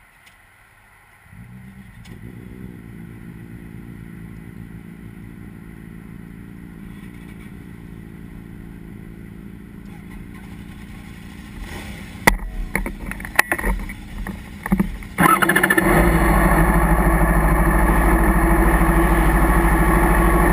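A vehicle engine starts a little over a second in and idles steadily. Near two-thirds of the way through come several sharp cracks, and then the engine runs much louder and steady until the end.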